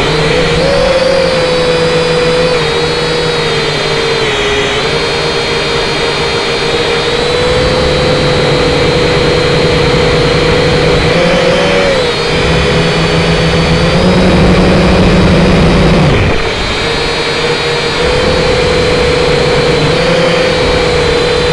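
Small toy quadcopter's electric motors and propellers whirring without a break, their pitch wavering up and down as the throttle changes. About fourteen seconds in they grow louder, then drop off with a falling pitch about sixteen seconds in.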